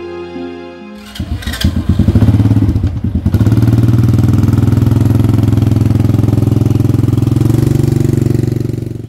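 Motor scooter engine starting about a second in, sputtering unevenly for a couple of seconds, then running steadily and loudly until it cuts off near the end.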